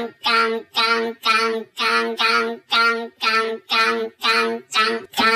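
Railroad crossing warning alarm ringing in a steady rhythm of about two pitched strokes a second, with a somewhat voice-like tone.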